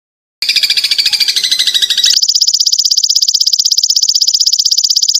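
After a brief silence, a dense mix of high chirping calls plays for under two seconds. A steady, rapidly pulsing, high-pitched insect trill then takes over.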